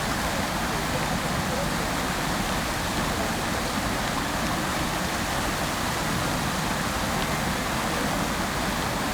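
Fountain water splashing and falling into its basin: a steady, even rush of water with no pauses.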